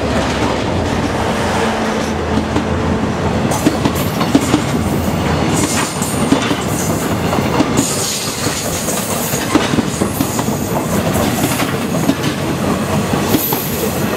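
A diesel-hauled passenger train rolling past at speed. The locomotive's engine note fades over the first few seconds as it moves away, then the coach wheels clatter steadily over the rail joints with brief high wheel squeals, one a little past the middle and another near the end.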